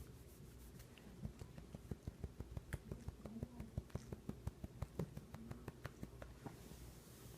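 A small dog licking and smacking its mouth after eating: a quick, irregular run of faint wet clicks, several a second, that starts about a second in and stops near the end.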